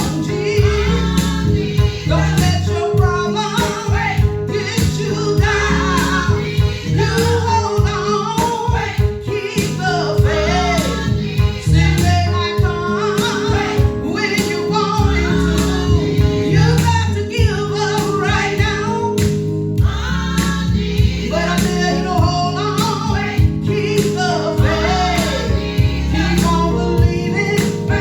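Gospel song: voices singing a melody over a band with a strong bass line and a steady beat.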